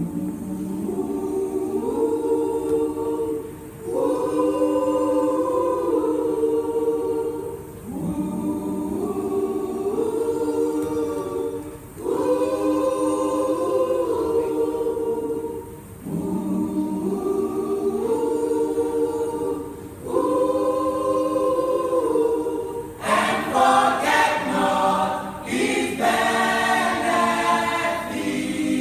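Church choir singing in several-part harmony, in sustained phrases of about four seconds each with short breaks between them. Near the end the singing grows louder and brighter, with some sharp accents.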